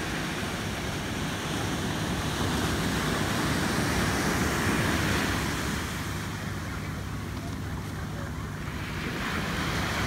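Ocean surf breaking and washing on a sandy beach, a steady rush of waves that swells louder about midway and again near the end, with wind on the microphone.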